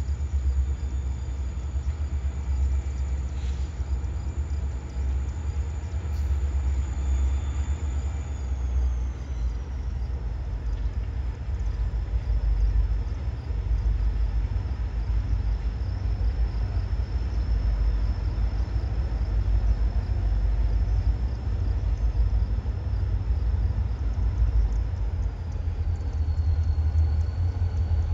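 Diesel locomotive approaching slowly, its engine a steady low rumble, with a faint high whine that drops in pitch twice.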